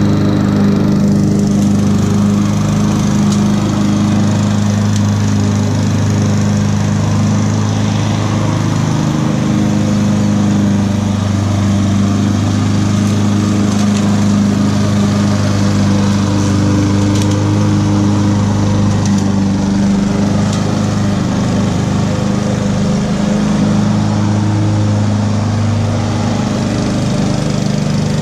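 Walk-behind petrol lawn mower engine running steadily at full speed while mowing grass, with slight dips in its low hum now and then.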